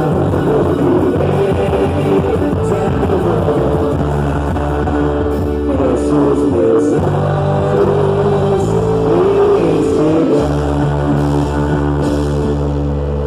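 Quadrilha junina music with singing: a song whose wavering sung melody runs over long held bass notes.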